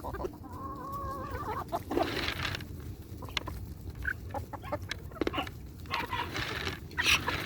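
Chickens clucking, with a drawn-out pitched call near the start and louder, rougher calls about two seconds in and again near the end.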